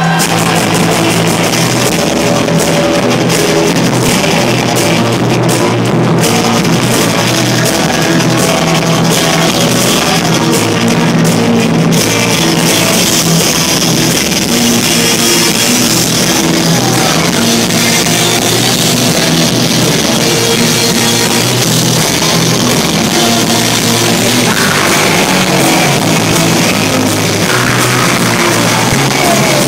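Live rock band playing a loud, fast song on electric guitars, bass guitar and drum kit, heard from within the crowd.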